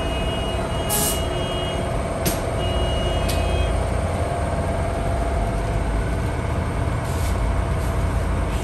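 Steady drone of workshop machinery with a constant hum, and short sharp hisses of compressed air from an air hose: three about a second apart early on and two more near the end.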